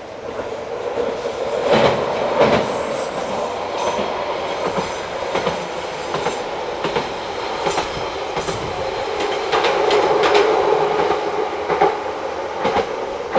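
Single-car diesel railbus passing along the line, its engine droning steadily and growing louder about ten seconds in. Wheels clack over the rail joints, several times in quick pairs.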